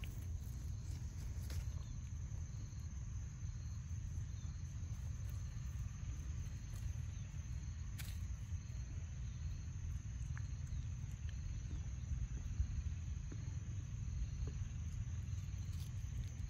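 Outdoor ambience: a steady low rumble under a thin, steady high insect drone with faint, evenly repeated chirps. A few sharp clicks, the clearest about halfway through.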